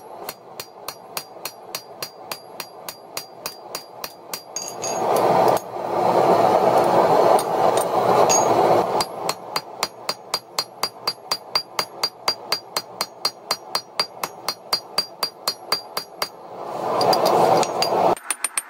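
Hand hammer striking a red-hot axe head on an anvil, about three blows a second, each with a ringing ping from the anvil. A loud rushing noise swells in for several seconds about four seconds in and again near the end.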